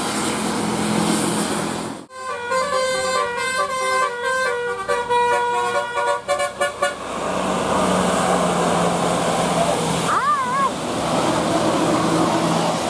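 Multi-tone 'telolet' bus horn playing a quick melody of stepping notes for about five seconds, starting after a sudden cut. Before and after it, street noise with a steady low hum, and a brief wavering tone about ten seconds in.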